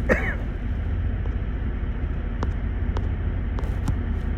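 A man's single short cough right at the start, followed by a steady low rumble with a few faint clicks.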